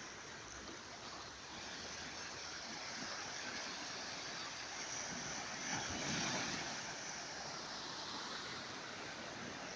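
Ocean surf washing on a beach, a steady hiss of waves with one wave swelling louder about six seconds in.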